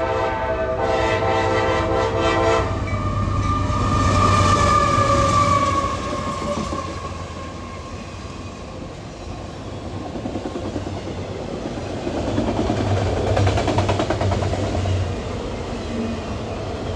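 A freight locomotive's air horn blowing a short blast and then a longer one that stops about three seconds in, followed by a tone sliding lower as the train passes. Then the steady rumble and rattle of a long CSX auto rack freight train rolling by, growing louder again near the end.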